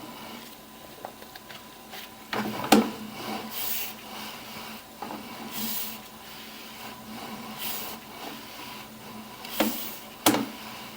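Sewer inspection camera's push cable being pulled back, rubbing and scraping as it feeds, with a swish about every two seconds and a few sharp knocks, one about three seconds in and two near the end.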